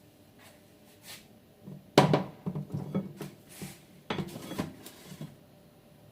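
A cooking utensil clattering and scraping against a frying pan while eggs are worked in it: a sharp knock about two seconds in, then a run of quick taps and scrapes, and a second burst of them about four seconds in.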